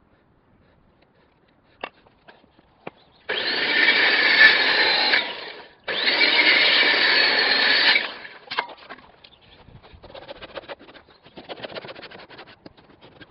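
Handheld circular saw cutting a softwood rafter in two passes of about two seconds each, starting about three seconds in. Then a handsaw sawing with quick, quieter strokes to finish the inside corner of the rafter's bird's mouth notch.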